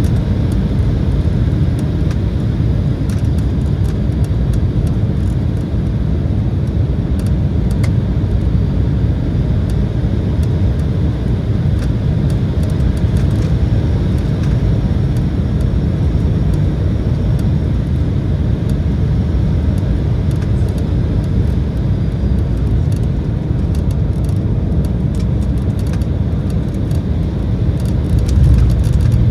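Steady cabin rumble of an Embraer E175 airliner: its GE CF34 turbofan engines and rushing airflow, heard from inside the passenger cabin, with scattered faint clicks. The rumble grows a little louder near the end.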